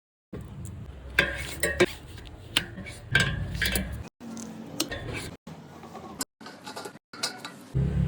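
Short metallic clinks and knocks of metal parts and tools being handled, broken by several abrupt cuts to silence.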